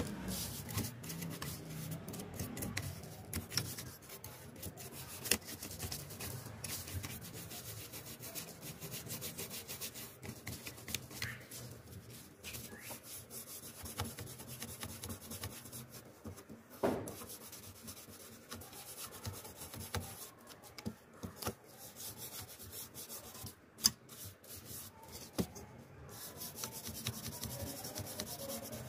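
Toothbrush bristles scrubbing the dusty plastic frame and blades of an old PC case fan: a continuous scratchy rubbing, broken by a few sharp clicks.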